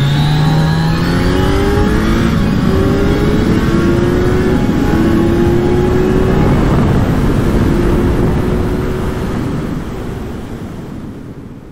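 Motorcycle engine accelerating hard, its pitch climbing in steps as it shifts up through the gears, then fading out over the last few seconds.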